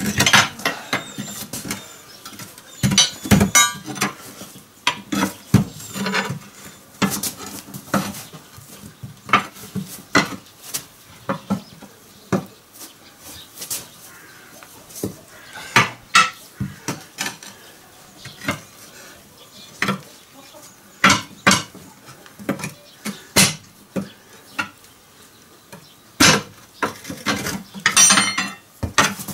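Steel tyre irons clanking and scraping against a tractor wheel's steel rim as it is levered out of the tyre: irregular metal knocks and clinks with short pauses between.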